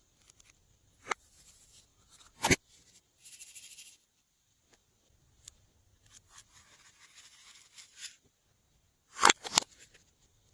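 Glossy slime being worked by hand: soft crackling squishes with four sharp pops, two of them close together near the end.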